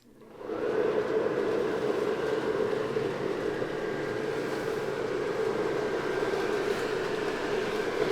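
Small electric blower fan of a Gemmy airblown Christmas inflatable switching on about half a second in and running steadily as it inflates the figure.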